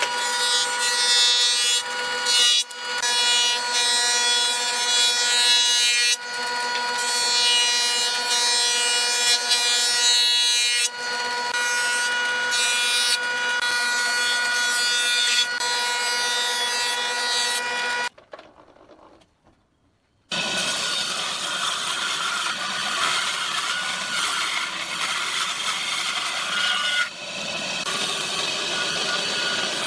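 Power tool cutting wood: a steady motor whine over rough cutting noise. It stops for about two seconds past the middle, then rough wood-cutting noise resumes without the clear whine.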